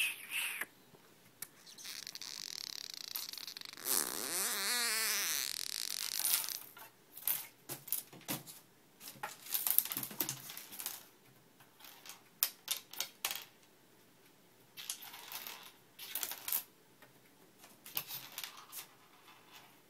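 Small loose objects clicking, rattling and scraping in the bottom of a desk drawer as a cat's paw bats them around, in irregular taps. About two seconds in, a scraping slide lasts a few seconds.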